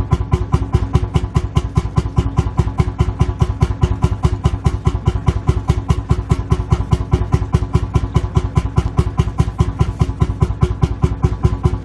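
Lanz Bulldog tractor's single-cylinder two-stroke hot-bulb engine idling, a steady, even beat of firing strokes at about five a second.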